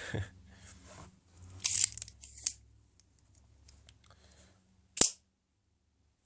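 Replica Microtech Halo V automatic knife being handled: short scraping handling noises, then about five seconds in one sharp, loud click as the spring-driven blade fires out.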